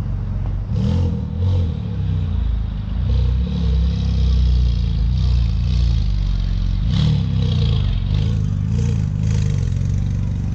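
Supercar engines revving in short rises and falls over a steady low engine rumble, with a quick run of revs about seven to nine seconds in.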